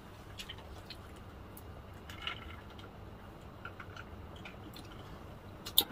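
Quiet drinking sounds from two people sipping through plastic straws: faint sips and small mouth clicks, with a brief sip about two seconds in and a sharper click near the end.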